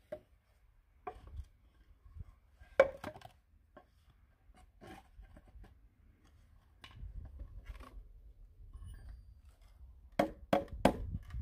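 Pallet-wood boards knocking and clattering as they are handled and fitted together, then three quick hammer blows near the end as the wooden box is nailed.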